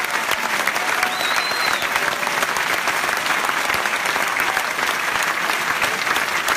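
Audience applauding steadily: dense, sustained clapping from a large crowd in a hall.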